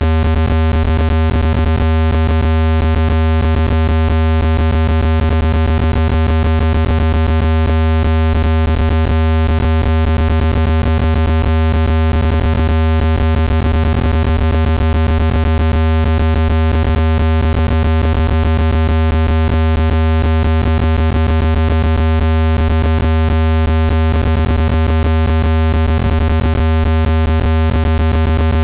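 Speaker-cleaning tone: a loud, steady, deep electronic tone with a stack of buzzy overtones. It is played at full volume to shake dust out of a phone or speaker grille.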